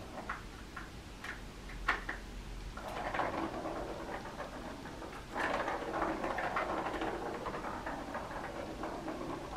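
A plastic ball rolling and rattling around the circular track of a cat's ball-track toy as a cat bats at it. A few sharp taps come first, and the rolling gets louder a little past halfway.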